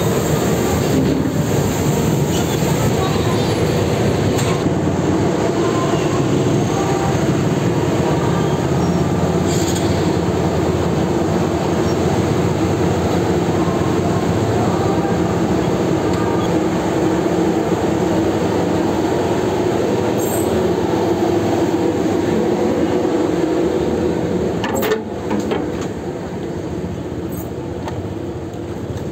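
Loud, steady machinery drone inside a car ferry's enclosed vehicle deck, mixed with the engines of motorcycles riding off. It drops in level about 25 seconds in, once out on the steel-grate ramp.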